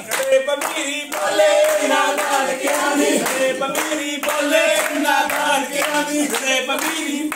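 A group of people singing together to steady rhythmic hand clapping.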